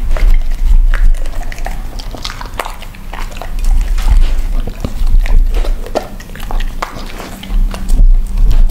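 A dog eating a mooncake off a plate: a run of quick chewing, licking and smacking clicks, over background music with a heavy bass.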